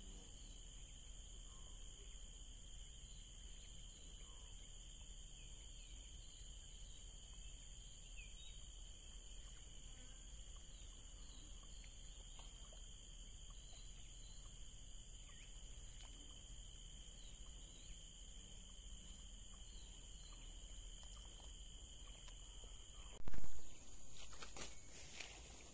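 Steady high-pitched drone of insects calling around a swampy pond, with faint short bird chirps. About 23 seconds in, a sudden loud knock cuts in and the insect sound changes.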